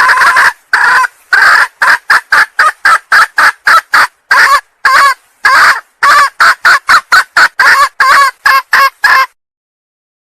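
Female junglefowl calling: one longer call, then a fast run of short clucks, about three to four a second, that stops about 9 seconds in. This is the hen's call used as a lure to draw in junglefowl cocks.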